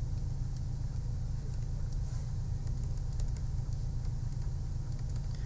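Steady low hum with a few faint scattered ticks.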